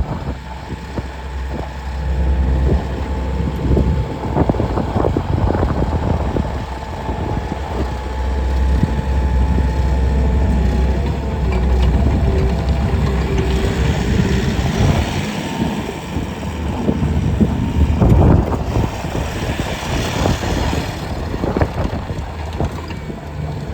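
Bobcat T770 compact track loader's diesel engine running with a steady low rumble, with scattered clanks and knocks. In the second half a rushing hiss rises and falls.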